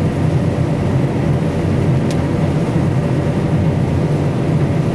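Combine harvester running steadily while cutting soybeans, heard from inside its cab: an even, low engine and machinery drone.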